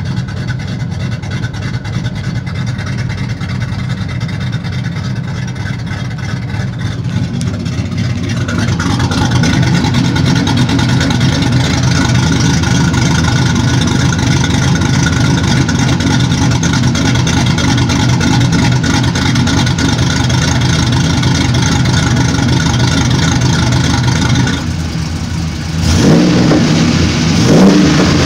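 5.3 L V8 fitted with a Summit 8713R1 camshaft and LS6 valve springs, idling at about 800 rpm and running on E85. It gets louder about eight seconds in, then is revved briefly twice near the end.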